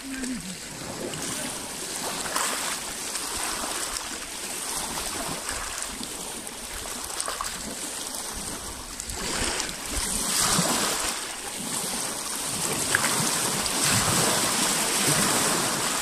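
Small lake waves lapping and breaking over the stones of a rocky shore, washing in surges that rise and fall, stronger about ten seconds in and again near the end.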